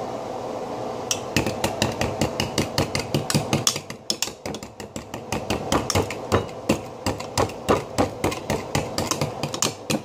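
Metal utensil repeatedly striking and chipping at a frozen block of ice: a rapid run of sharp knocks, about three or four a second, a little quieter for a moment about four seconds in.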